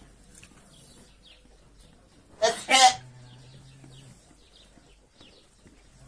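A lamb coughing twice in quick succession, two short loud coughs.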